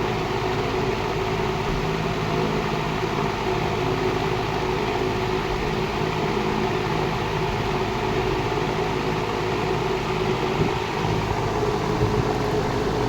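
1960s Emerson box fan, its PSC motor driving an aluminum blade, running steadily: an even rush of air over a low motor hum.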